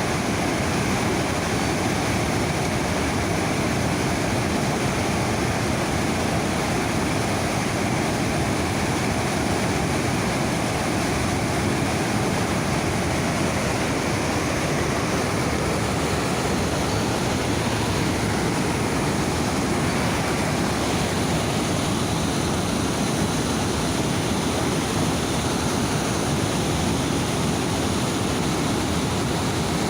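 Niagara River rapids rushing in a loud, steady roar of fast white water just above the falls.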